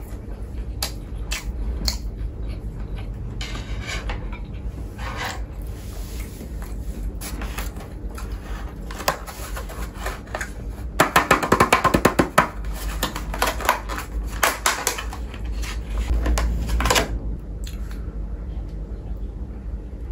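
Eating and handling snack food and its packaging: scattered clicks and knocks with crinkling, and a dense run of rapid crackling about eleven seconds in.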